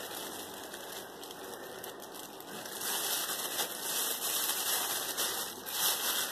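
Thin polythene bag crinkling and rustling in the hands as blanched green peas are tipped into it and the bag is held open and shaken out; the crinkling gets louder about three seconds in.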